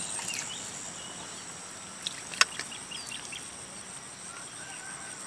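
Insects droning steadily at a high pitch, with a few faint short chirps. A single sharp click about two and a half seconds in.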